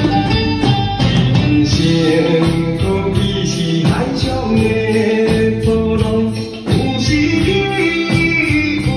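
Group drum-kit performance: several drum kits played together in time with a song that has a sung melody.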